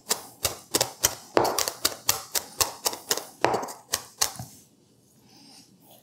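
Kitchen knife chopping garlic into a fine mince on a plastic cutting board: a quick, even run of knocks, about four a second, that stops about four and a half seconds in.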